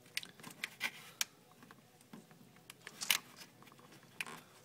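Hands working a hose and plastic connector back into place in a truck's engine bay: scattered light clicks and rubbing, with a sharper click a little after three seconds in.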